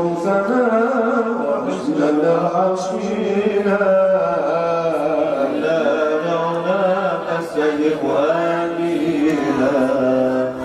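A man's voice chanting an Arabic devotional poem (qasida) through a microphone, unaccompanied, in long drawn-out notes that waver in pitch.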